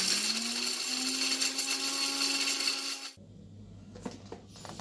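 Electric mixer grinder grinding crisp-roasted dried red chillies to a fine powder in its steel jar: a loud whirring rush whose motor hum rises in pitch over the first second as it spins up, then holds steady until it cuts off suddenly a little after three seconds in.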